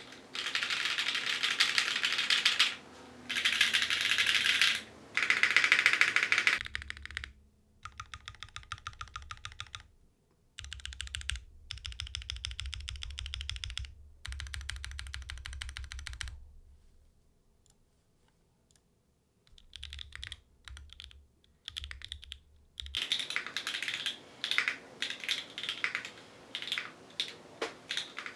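Typing on a Mode Envoy mechanical keyboard with Obscura linear switches, GMK keycaps and no foam inside. It starts with fast runs of keystrokes that blur into a clatter, goes softer and sparser partway through with a near pause, and ends with loud separate keystrokes near the end.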